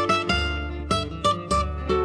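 Recorded music: acoustic guitars picking a quick melodic run of single plucked notes over bass notes, an instrumental passage with no singing.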